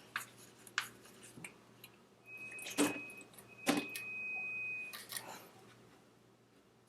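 Metal clinks and taps of a socket and hand tools being handled, with two sharper knocks about three and four seconds in. A thin steady high tone runs for a couple of seconds in the middle.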